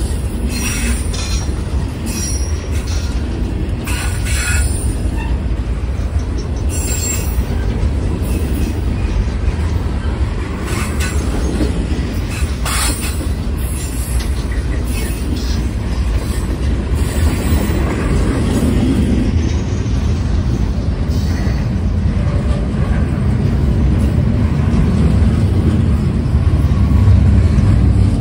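Freight train cars rolling past close by: a steady low rumble with short high-pitched wheel squeals now and then, mostly in the first half. It grows louder near the end.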